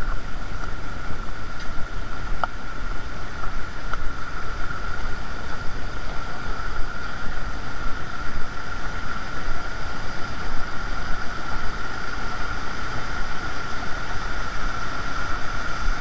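Mountain stream water rushing steadily through a rocky gorge, a dense even noise, with a steady high tone running through it and a couple of faint clicks a few seconds in.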